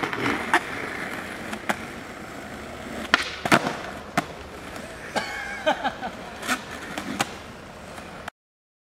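Skateboard wheels rolling on asphalt, with a series of sharp clacks from the board. The sound cuts off suddenly near the end.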